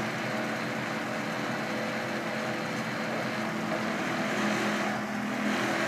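Truck engine running with its hydraulic pump driving the Palfinger hooklift, a steady drone and hum as the hook arm works the tipped dumpster container.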